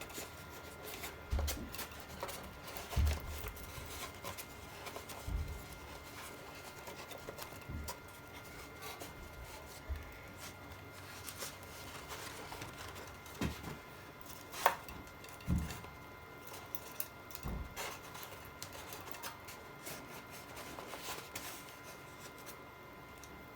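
Handling noise from the foam and plastic parts of a radio-controlled model plane: faint rubbing and scattered soft knocks and thumps as the wing is offered up to the fuselage and the servo leads are fed through.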